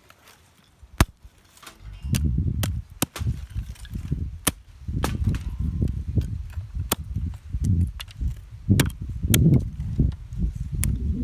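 Wood fire crackling, with sharp irregular pops and snaps, the loudest about a second in, over a low, uneven rumble that starts about two seconds in.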